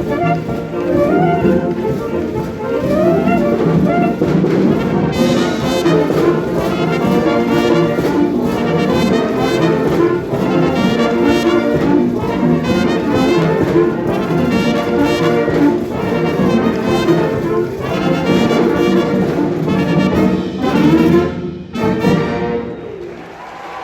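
Concert wind band playing, with brass to the fore. The band fills out about five seconds in and ends the piece near the end, the last chord breaking off.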